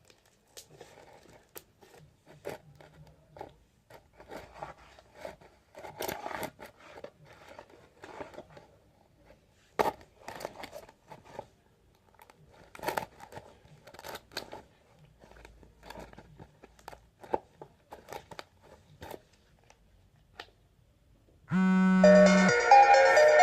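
Hands squishing and stretching slime, making irregular small crackles, pops and sticky clicks. Near the end, music starts over it and is louder than the handling.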